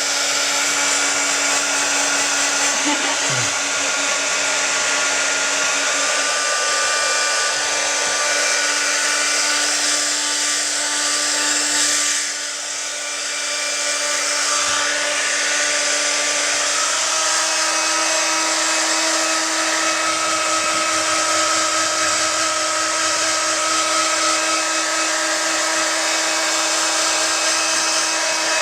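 Hand-held electric hair dryer running continuously, a steady rush of blown air over a motor hum. It dips briefly about twelve seconds in, and the hum steps slightly higher a few seconds later.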